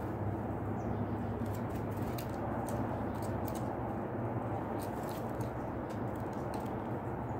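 A steady low hum with a scatter of short, sharp high ticks, small birds pecking at crushed nuts on a concrete ledge.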